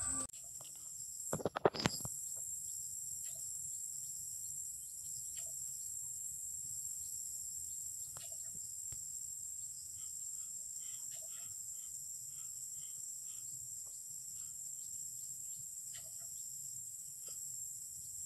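Steady high-pitched chorus of insects in a rice paddy, with scattered faint bird chirps. A brief loud burst of clicking and knocking comes about one and a half seconds in.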